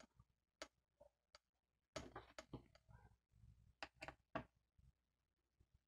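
Faint, scattered small clicks and taps of a screwdriver and fingers handling parts on an open laptop's plastic and metal chassis. They come in a cluster about two seconds in and another around four seconds in.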